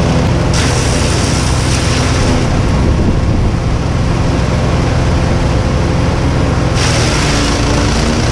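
Cobra gravity-fed wood chipper running steadily while chipping green waste: a loud engine hum under a rushing noise that steps up about half a second in and again near the end.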